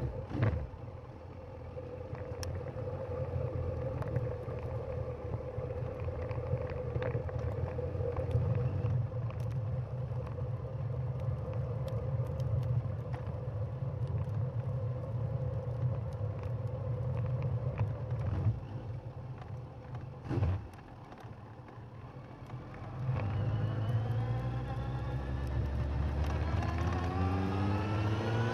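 Suzuki GSX1250FA's inline-four engine on the move, heard from under the seat: a steady cruising drone, a short lull about two-thirds through, then the revs climb in a long rising whine under acceleration near the end.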